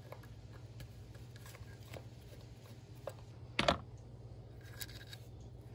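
Faint clicks and ticks of a screwdriver with a T20 security Torx bit working screws out of a mass airflow sensor, with one louder knock about three and a half seconds in.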